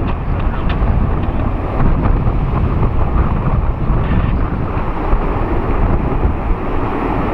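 Wind buffeting the microphone over the steady low rumble of a Boeing 747-400's four jet engines at takeoff power as it climbs out.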